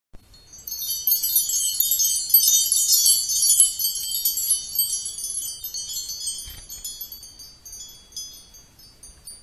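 Sparkle sound effect of many high tinkling chimes, filling in within the first second and gradually thinning out and fading over the last few seconds.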